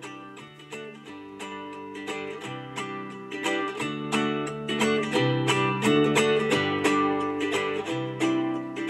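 Acoustic guitar music, picked notes and chords, played through the InstaBox i90 Bluetooth speaker. It grows louder over the first six seconds or so, then drops near the end as the volume is turned down.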